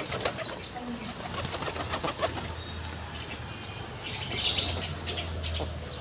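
Pigeons flapping their wings in short, repeated flutters while they crowd a hand to peck grain.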